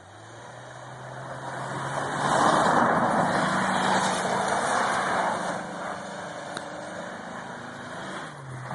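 1997 Ford Explorer Sport 4x4 driving through snow: its engine note and a broad rush of tyre and snow noise build up, are loudest from about two to five seconds in, then ease off.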